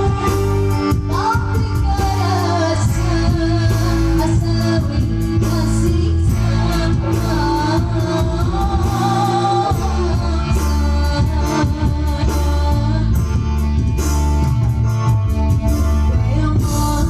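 A song with a sung vocal melody over a steady bass line and percussion.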